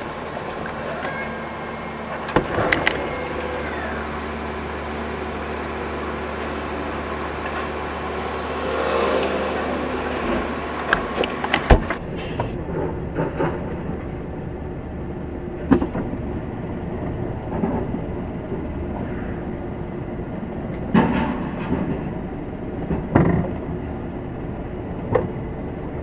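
Inside a stationary lorry cab: a steady low hum under hiss, with scattered knocks and clanks. A little under halfway through, a sharp knock comes and the hum and high hiss drop away, leaving a quieter rumble with occasional clunks.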